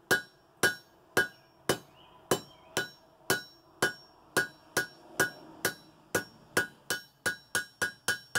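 A blacksmith's hammer striking red-hot steel on an anvil with a hot cut, about two blows a second, each with a short metallic ring. He is cutting excess material off a forged knife blade, and the blows quicken near the end as the cut goes through.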